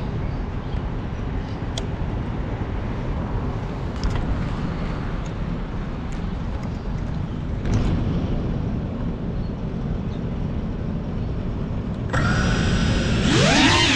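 Low wind rumble on the drone camera's microphone. About twelve seconds in, the motors of a GEPRC Cinelog35 FPV drone start with a steady whine. A second later they rise sharply in pitch as the throttle comes up for takeoff, then waver.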